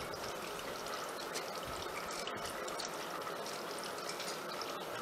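Fluid trickling and pouring steadily from the John Deere 4300's opened rear axle housing into a bucket below.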